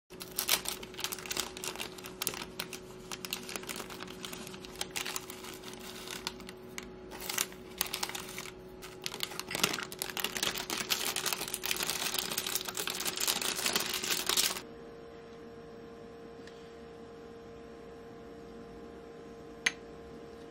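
Instant oats pouring and being spooned into a glass mug: a dense rattling patter of flakes against glass, with the plastic oat bag crinkling. It stops abruptly about two-thirds of the way through, leaving a steady low hum and one sharp tap near the end.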